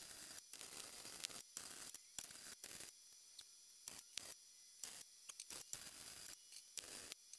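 Faint crackling hiss of a welding arc, starting and stopping in short bursts, as plug welds are laid through drilled holes to join a sheet-steel patch to a car's floor pan.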